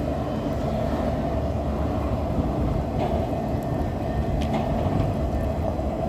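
Empty autorack cars of a freight train rolling slowly past on the rails: a steady rumble of wheels on track with a constant hum, and a couple of faint clicks partway through.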